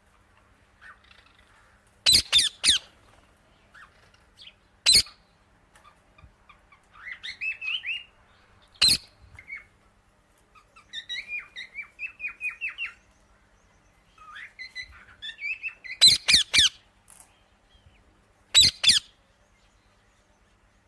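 Parrot calling: short, loud, piercing screeches come every few seconds, some in quick clusters. Between them are quieter runs of rapid, chattering chirps.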